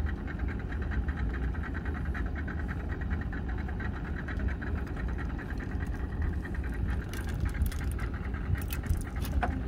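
Small fishing boat's outboard motor running steadily at trolling speed, a low rumble with a fast even pulse. A few light knocks sound near the end.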